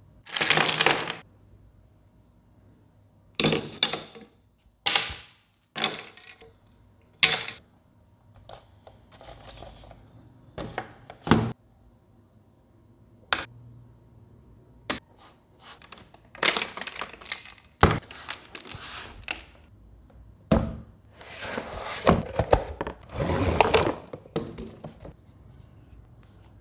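Handling of a mini humidifier fan: irregular thunks and clicks, with a few longer scraping rustles.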